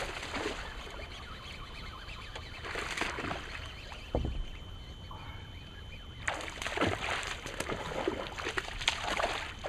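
A hooked bass splashing and thrashing at the water's surface as it is played in to the boat, in irregular bursts that grow busier over the last few seconds. A single dull thump is heard about four seconds in.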